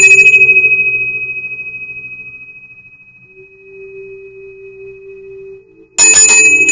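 Small brass handbell shaken, its clapper striking several times in quick succession. A single high ring follows and slowly fades. It is shaken again about six seconds in.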